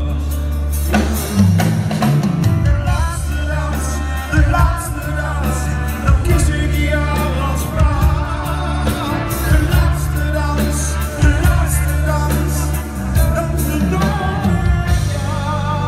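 A live band plays a musical-theatre number with a steady heavy bass and drum beat, and a man sings over it into a microphone.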